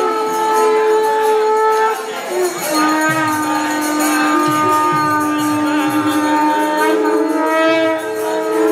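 Several conch shells blown together in long, steady notes, a few held pitches overlapping, breaking off briefly about two seconds in and then sounding again, with a metallic jingling behind them.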